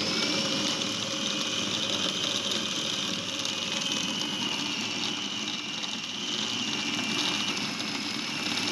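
Electric kitchen grinder motor running steadily at high speed, grinding ingredients, its pitch holding nearly level throughout.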